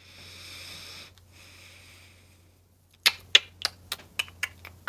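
A soft breathy hiss, then about three seconds in a quick run of about eight sharp clicking taps over two seconds, the first the loudest and the rest fading.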